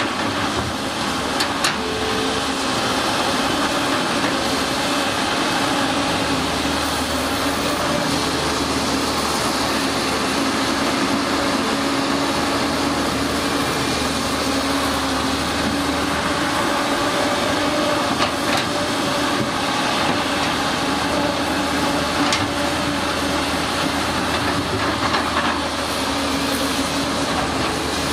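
CAT 320C hydraulic excavator's diesel engine running steadily under load as the machine digs, with a drifting hum from the engine and hydraulics and a few brief knocks.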